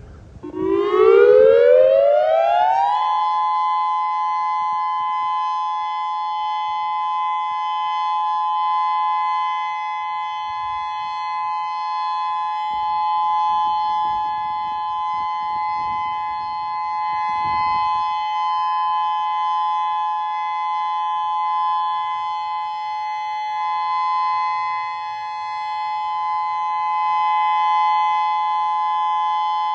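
Federal Signal Modulator 6048 electronic tornado siren sounding its test tone. It sweeps up in pitch over the first three seconds or so, then holds a steady two-note tone.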